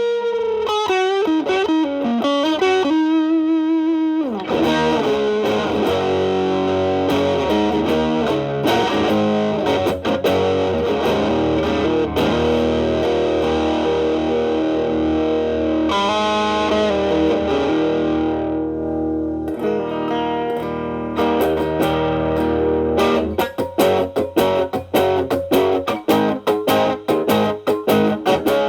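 Electric guitar (a Telecaster) through an MXR Distortion+ stacked with a Boss SD-1 into a Marshall Valvestate clean channel, playing distorted blues lead lines with bent, wavering held notes. Near the end the playing turns to choppy, evenly repeated strummed chords as the drive is cleaned up.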